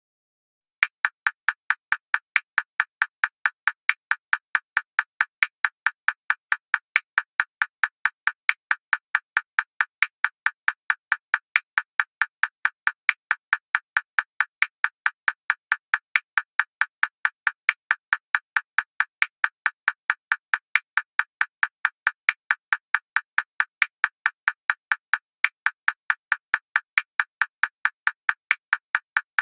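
A steady train of short, sharp ticking tones, about three a second, starting about a second in. It is the pacing signal for a rapid-blinking eye exercise: the eyes open and close in time with each tick.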